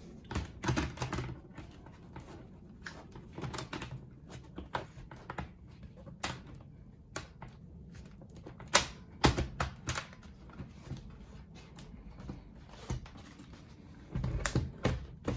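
Irregular plastic clicks and knocks from handling a Dell Inspiron 15-3567 laptop as its battery is put back in, with the sharpest click about nine seconds in and a run of clicks and bumps near the end.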